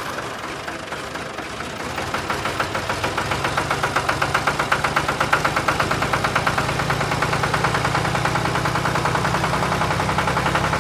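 Small engine chugging at a fast, even rhythm like a tractor idling, growing louder about two seconds in.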